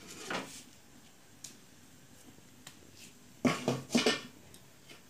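A few short knocks and clatters: a soft one just after the start, then a quick run of four or five about three and a half seconds in.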